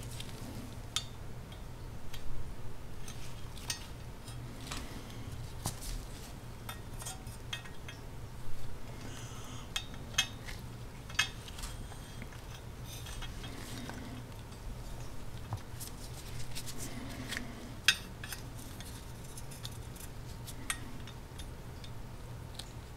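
Small metal clicks, taps and clinks, irregular and scattered, as a steel axle rod and wheels are worked onto a Wyandotte pressed-steel toy truck cab, with a few sharper knocks, over a steady low hum.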